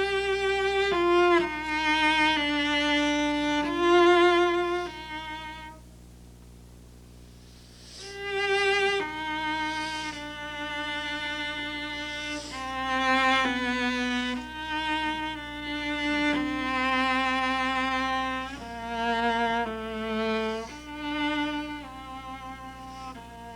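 Solo cello playing a slow melodic line of sustained, vibrato notes in its upper-middle register. The playing breaks off about six seconds in, then resumes about two seconds later.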